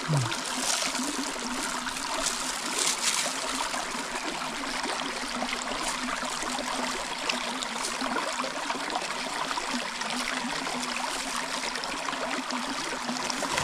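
A small stream trickling and flowing steadily, with a few faint clicks.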